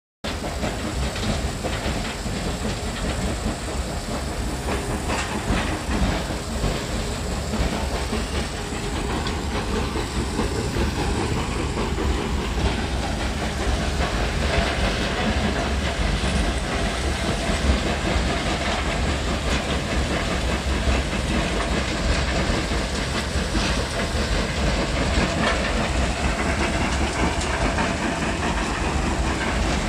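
Stone-crushing sand-making plant running, with a double roller crusher and gravel-loaded conveyor belts at work. It makes a steady mechanical rumble full of small knocks of rock.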